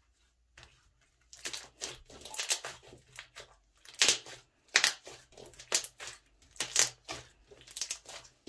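Thick, glossy slime being squeezed and kneaded by hand, giving irregular sticky squelches, crackles and pops of trapped air. It starts about half a second in, and from the middle on the loudest pops come roughly once a second.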